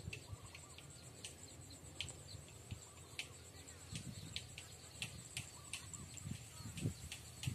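Faint, steady high-pitched insect trilling, cricket-like, with scattered short ticks and a faint low rumble underneath.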